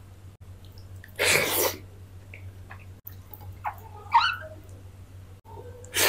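Close-miked eating by hand: fingers squishing rice and kofta curry and a mouthful being taken. There are two short, loud hissy bursts about a second in and near the end, and a brief wavering squeak in between, over a steady low hum.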